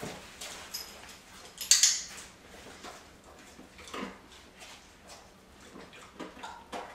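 A dog-training clicker gives one sharp click about two seconds in, marking the dog stepping onto the mat, among a few light taps of footsteps and claws on a tile floor.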